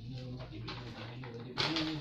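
A large folded paper sheet being unfolded and shaken open, rustling and crackling, loudest from about one and a half seconds in. A low, pitched hum-like sound runs underneath.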